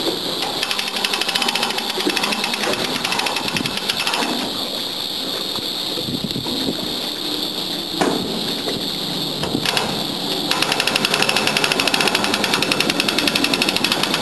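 Hand-cranked ratchet winch on a boat's davit clicking rapidly as it is wound to hoist a rescue basket out of the water. The clicking becomes louder and more even about ten seconds in.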